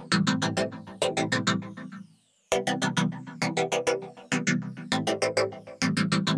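Background electronic music with a quick, steady beat of short notes over a low sustained part. It drops out for about half a second around two seconds in.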